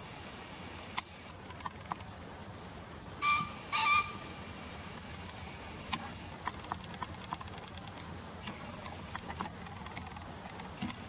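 Male green pheasant giving its harsh two-note crow, two loud calls about half a second apart roughly three seconds in. Scattered sharp ticks sound through the rest.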